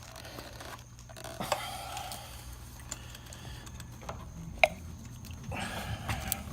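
Scattered light clicks and knocks of a spark plug cap and wire being worked free past a motorcycle frame, with a sharper click a little past the middle.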